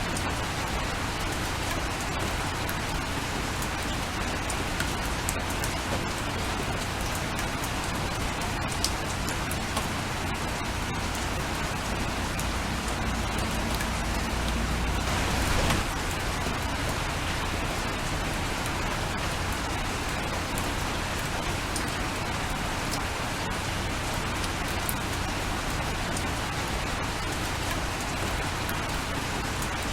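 Steady rain, with individual raindrops ticking on a surface. About halfway through there is a brief swell of low sound that stops suddenly.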